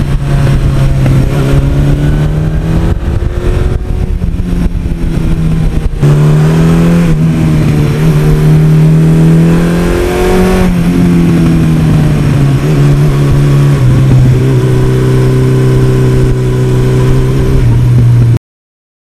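1982 Suzuki GS1100E's air-cooled inline-four engine running under way, heard from the bike, its pitch rising and falling with the throttle: it climbs steadily for several seconds mid-way, then eases back down. The sound cuts off suddenly near the end.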